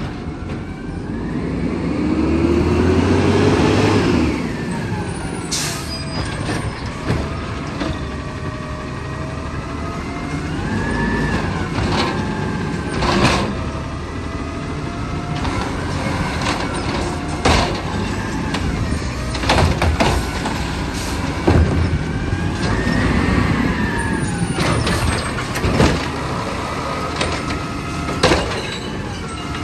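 Automated side-loading garbage truck with a compressed-natural-gas engine pulling up and working its arm to lift and tip recycling carts. The engine revs up and down repeatedly, with sharp clanks from the arm and carts and short hisses of air.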